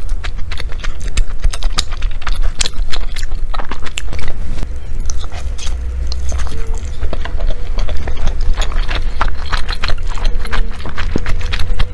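Close-miked chewing of sticky glutinous rice zongzi with savoury meat: a quick, irregular run of wet mouth clicks and lip smacks.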